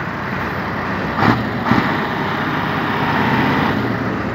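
Heavy truck's diesel engine running steadily, with two short knocks about a second and a half in.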